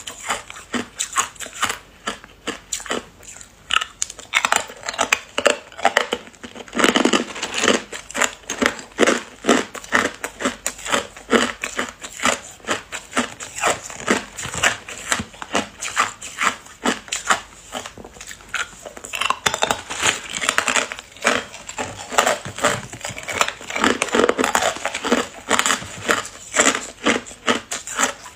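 Hard ice cubes being bitten and chewed, close to a clip-on microphone: a dense, irregular run of sharp cracks and crunches.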